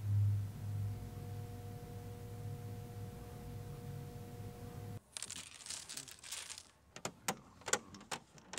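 A steady low hum with two faint higher tones, which cuts off about five seconds in. Then domino tiles clatter and click on a wooden table as they are shuffled and set down, in a run of short, sharp knocks.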